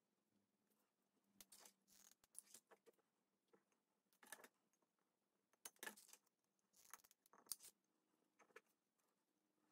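Faint clinks and rustles of a rhinestone trim being wrapped and pressed around a ceramic jar, the small stones rattling against each other and the glaze. About a dozen short clicks come at uneven intervals, with a few louder ones in the middle.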